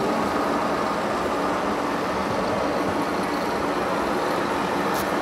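Simulated diesel engine sound from a radio-controlled Scania heavy-haul truck's sound module, running steadily as the truck pulls its loaded low-loader, over a constant background hubbub.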